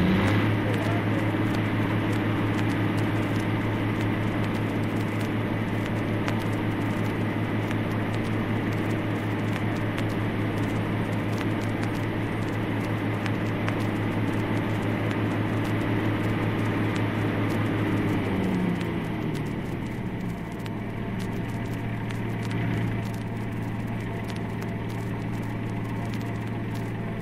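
A machine's motor running steadily under a fast rattling texture, settling slightly lower in pitch about two-thirds of the way through.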